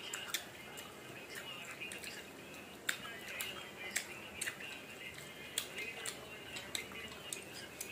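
Close-up wet chewing and lip smacks of someone eating ripe mango slices by hand: a run of short, sharp wet clicks, some louder than others.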